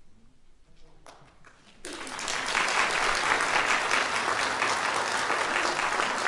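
Audience applauding: a quiet moment, then dense, steady clapping from many hands that starts about two seconds in.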